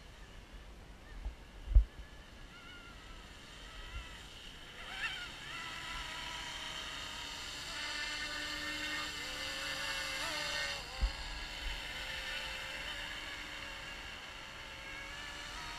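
Eachine E200 RC scale Black Hawk helicopter in flight: the whine of its motor and rotors shifts up and down in pitch, growing louder from about five seconds in. Two low thumps break in, the loudest about two seconds in and another about eleven seconds in.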